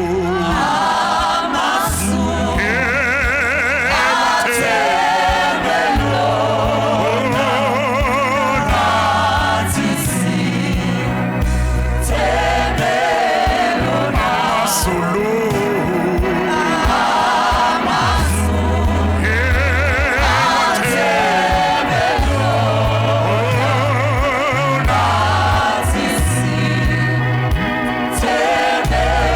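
Gospel music: a choir singing over a steady, stepping bass line, the voices wavering with vibrato.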